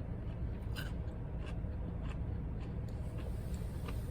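Steady low rumble inside a car's cabin, with a few faint clicks of chewing.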